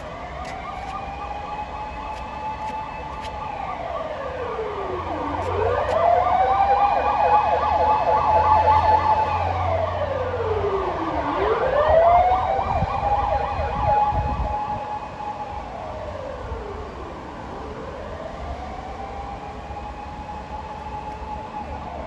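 Japanese fire engine siren wailing as the truck drives past on an emergency run. It slowly rises, holds, and falls again in cycles about every five to six seconds, loudest about twelve seconds in. While it is nearest, a fast pulsing tone and the truck's engine rumble join it.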